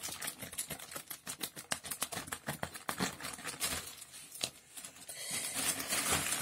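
Scissors cutting through a plastic courier mailer: a quick run of small snipping clicks, then plastic crinkling from about five seconds in as the bubble-wrapped package is pulled out.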